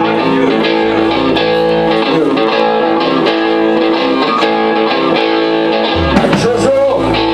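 Live rock and roll band playing: electric guitars, bass and drums, with guitar chords ringing on.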